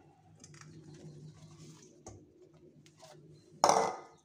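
Fried aubergine pieces tipped from a metal bowl into an aluminium pan of rigatoni and stirred in with a wooden spoon: faint scrapes and soft taps, then a loud, short clatter of metal kitchenware with a brief ring about three and a half seconds in.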